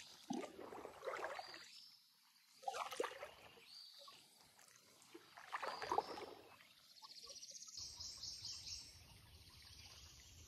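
Quiet water sounds from a shallow creek: soft splashes and trickling that swell every few seconds, with a faint high trill near the end.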